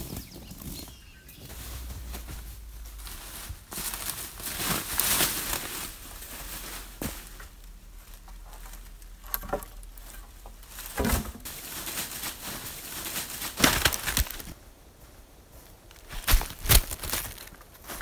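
Footsteps crunching through dry leaves and the rustle and scrape of long dead branches being carried through the undergrowth. A few sharp knocks come in the second half.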